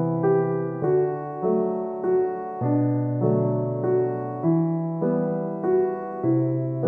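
Solo piano background music, with a new note or chord struck a little more than every half second at an even pace.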